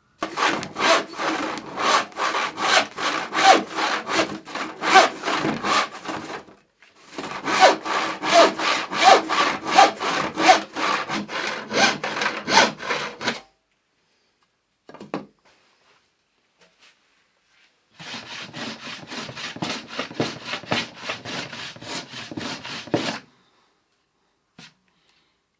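A hand tool worked back and forth on wood in rapid, even strokes, about three a second. It goes in three runs of roughly six, six and five seconds, with short pauses between them.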